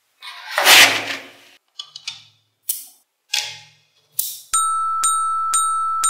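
Small magnetic balls rattling and scraping against each other, then snapping together in a few sharp clicks. About four and a half seconds in, a steady bell-like chime tone starts, pulsing about twice a second.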